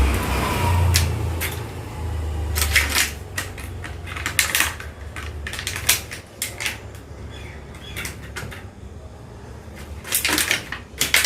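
Irregular light clicks and knocks of a puppy playing by itself on a hard floor, with a quick cluster of louder clicks near the end. A low rumble runs under the first three seconds.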